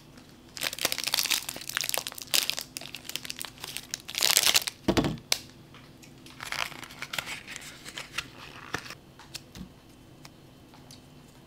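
A plastic snack-pastry wrapper crinkling and tearing as it is pulled open, with a dull knock about five seconds in. A shorter stretch of crinkling follows, then a few small clicks.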